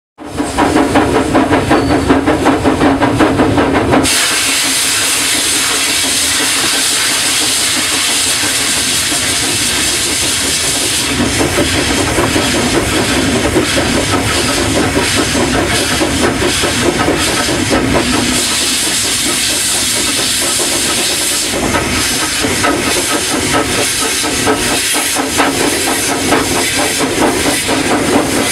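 Small industrial steam tank locomotive working along the line: a steady hiss of steam with a run of rhythmic exhaust beats and rail noise. The sound changes abruptly about four seconds in, and again later, between takes.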